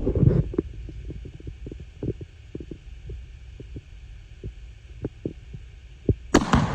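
Irregular low thumps and knocks, then near the end a sharp rifle bang setting off the Tannerite charge, with a second crack close behind and a long rolling boom that fades away.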